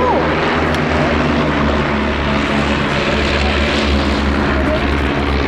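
Propeller-driven de Havilland Chipmunk flying its airshow display, its piston engine and propeller giving a steady drone.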